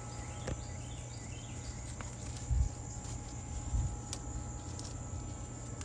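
Insects chirring steadily in a garden, with a low rumble underneath and two dull thumps, one about two and a half seconds in and one near four seconds.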